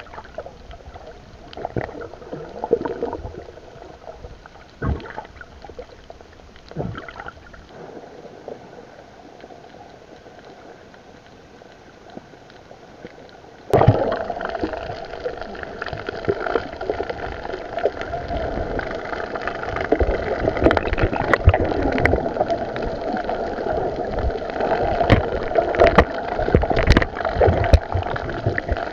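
Muffled water noise picked up by a submerged camera, gurgling and rushing, with scattered sharp knocks. It jumps suddenly louder and busier about halfway through.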